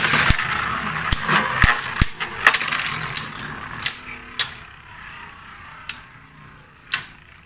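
Two Takara Tomy Beyblade Burst tops ripped off string launchers together, a loud zip at the start, then spinning in a plastic stadium. A whirring hiss fades over the first four seconds, broken by about ten sharp clacks as the tops strike each other and the walls, more spaced out toward the end.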